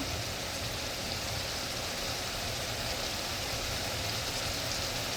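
Cooking oil sizzling steadily, an even hiss from food frying, with a low hum beneath.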